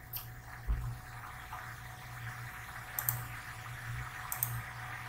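Faint room tone from a desk microphone: a steady low hum and light hiss, with a few faint, short clicks, the sort made by a computer mouse while slides are changed.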